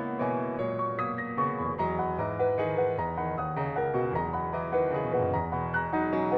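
Solo piano playing a flowing passage of many overlapping notes, with a steady stream of new notes struck several times a second over held bass tones.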